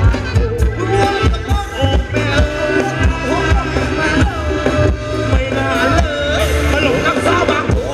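Live Thai ramwong dance band playing: a voice sings a gliding melody over a steady drum beat and a heavy bass line.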